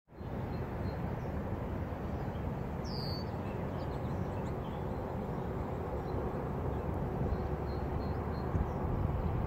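Steady low outdoor background rumble with a single short sweeping bird chirp about three seconds in and a few faint chirps later.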